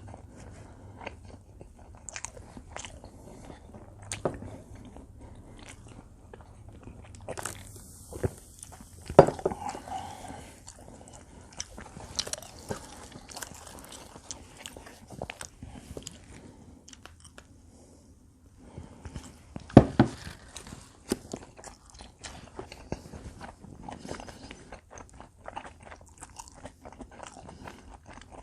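Close-miked eating of combination pizza: biting into the crust and chewing, with many small crunches and mouth clicks. Two louder sharp sounds come about a third of the way in and again about two thirds in.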